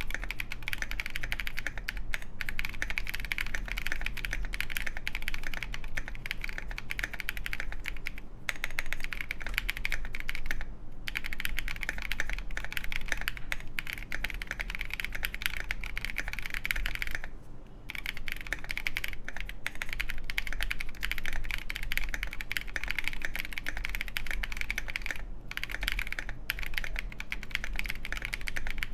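Continuous fast typing on a KindleStar Orion 87 mechanical keyboard with lubed Boba U4T tactile switches, a full polycarbonate plate, foam-filled case and KAT Mizu keycaps: a dense run of keystrokes with short pauses about eight, eleven, seventeen and twenty-five seconds in.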